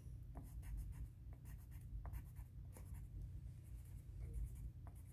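Pencil lead scratching faintly on paper in many short strokes as a small picture is drawn, over a steady low hum.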